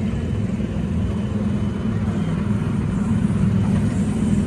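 Electric Autopia ride car running along the track: a steady low hum and rumble.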